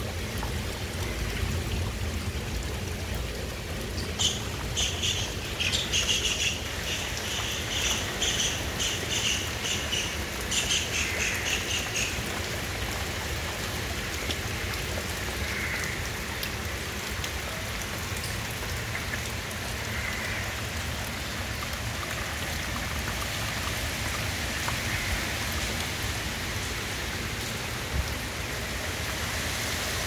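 Steady rain falling on foliage, roofs and floodwater. From about four seconds in until about twelve seconds, a bird calls in quick repeated chirps over the rain, with a few fainter calls later.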